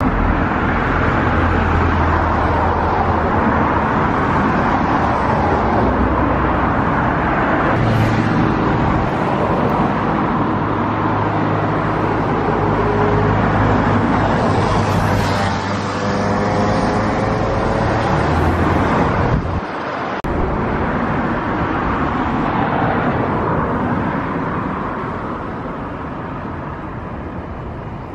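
Continuous road traffic noise, with vehicles passing and a low engine hum under it for long stretches.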